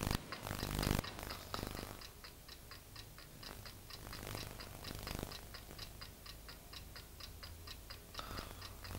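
A mechanical clock ticking steadily in a quiet room, about four ticks a second, over a low hum. A brief louder noise comes in the first second.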